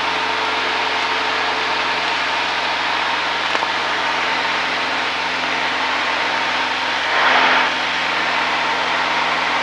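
Cessna single-engine piston aircraft's engine and propeller droning steadily at cruise power, heard inside the cabin with a constant rush of airflow. A brief louder swell of noise comes about seven seconds in.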